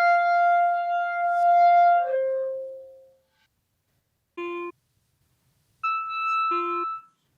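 Solo clarinet playing improvised held notes. A long sustained note steps down to a lower one and fades out about three seconds in. After a gap, clipped notes cut in and out abruptly: a brief low note twice, and a higher note held for about a second near the end.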